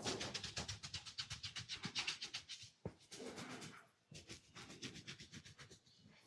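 Rapid, rhythmic hand strokes of a massage, about ten a second, in two runs with a softer rubbing stretch between them.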